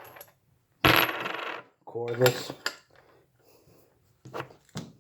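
A small metal part dropping and clattering on a hard surface with a bright ring, followed by a few light clicks of parts being handled.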